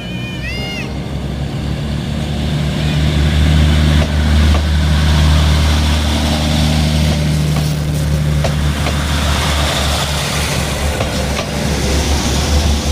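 Diesel locomotive engine running with a deep, steady drone, getting louder over the first few seconds as the train draws near, with a few sharp metallic clanks.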